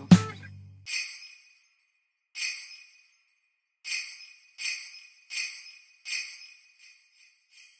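Sleigh bells shaken in short, sharp, ringing strokes. A run of evenly spaced shakes, about one and a half a second, counts in four beats before the song, and fainter shakes follow near the end.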